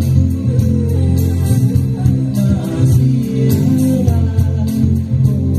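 Band music with a heavy bass line and plucked guitar, with sharp drum or cymbal hits through it.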